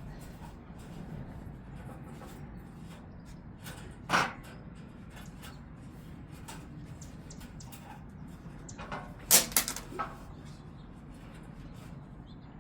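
Stiff hardware-cloth wire mesh being worked into a steel cargo rack by hand, scraping and clinking against the bars, with a sharp clank about four seconds in and a quick run of clanks near nine to ten seconds.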